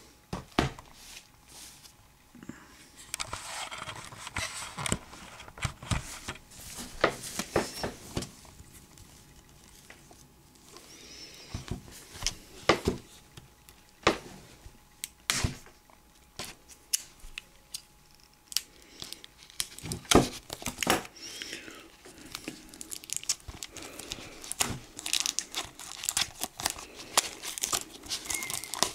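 Plastic shrink-wrap being torn open and pulled off a Blu-ray case, crinkling and crackling, with scattered sharp snaps and taps as the case is handled; the loudest snaps come about 14 and 20 seconds in.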